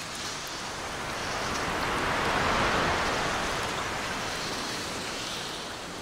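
A steady rush of falling water that swells to its loudest about two and a half seconds in, then fades.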